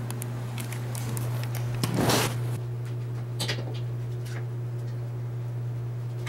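A camera being set down and settled on the floor: a short rustling scrape about two seconds in, then a few light taps, over a steady low hum.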